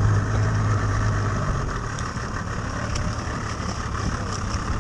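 Boat's outboard motor idling steadily, its low hum dropping back about a second and a half in.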